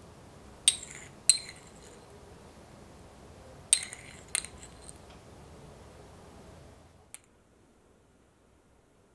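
A small metal spoon clinking against a ceramic plate while pistachio bits are set on frosted muffins. There are two pairs of sharp, ringing clinks, each pair about half a second apart.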